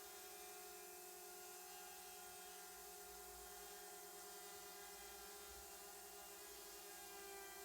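Faint steady hum, unchanging throughout, with several fixed pitches over a low rumble.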